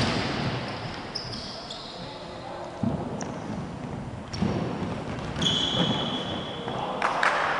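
Futsal ball being kicked and bouncing on a wooden court: about five sharp thuds, each echoing in the hall, with a couple of high, steady squeaks between them.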